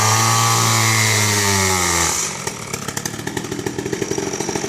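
Two-stroke chainsaw revved up high for about two seconds, its pitch then falling as it drops back to a fast, ticking idle.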